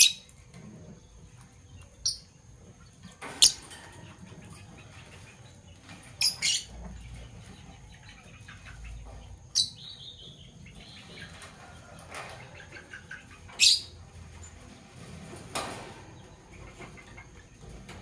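Fischer's lovebirds chirping: about eight short, sharp, high calls spaced a second or few apart, one near the middle trailing off in a falling note.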